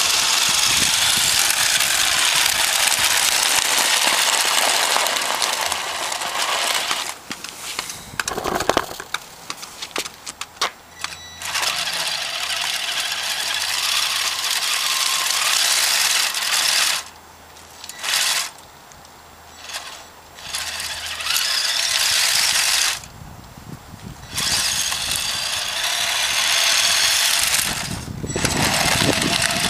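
Radio-controlled 4x4 plow truck driving through slushy snow: a steady high hiss of its motor, gears and tyres that stops and starts again several times as the truck halts and moves off.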